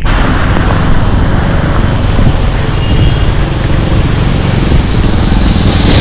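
Steady rush of wind on the microphone and road noise from riding on the back of a motorcycle through traffic on a rain-wet road, with a heavy low rumble.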